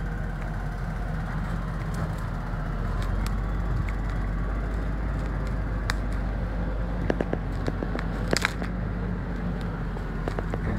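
Tractor engine running steadily under load, pulling a soil-laden Fliegl ASW 248 dump trailer over soft ground. A run of sharp cracks and snaps comes about seven to eight and a half seconds in.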